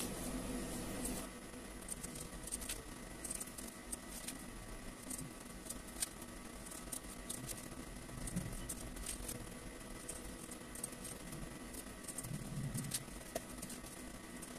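Faint scratching and rustling of dry shredded tobacco being scooped and packed with a hand-held plastic cigarette filling tool, with scattered small clicks from the tool.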